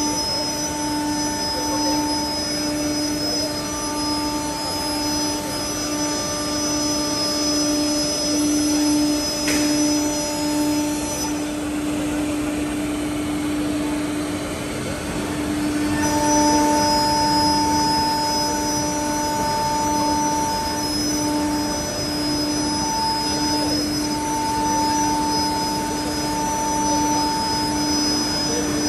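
Single-head CNC wood router running, its spindle giving a steady high whine over a continuous rushing noise. The highest part of the whine drops away for about five seconds midway, then returns.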